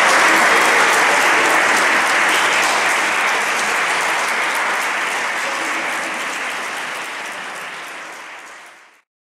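Audience applauding, a dense patter of many hands clapping that slowly dies down and fades to silence about nine seconds in.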